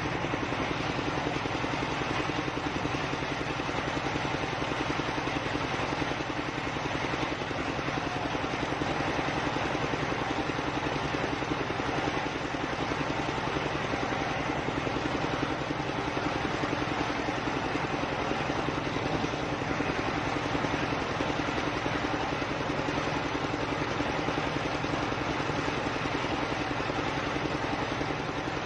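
Homemade sawmill circular saw and the engine that drives it running steadily, with no pause or change in pitch.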